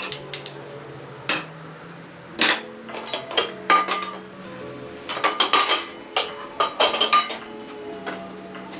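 Metal cookware (a cup and a kettle) and hanging hooks clinking and knocking against a metal hanging-rack bar as they are unhooked and set down on a wooden table: a run of sharp clinks, several ringing briefly, busiest in the second half.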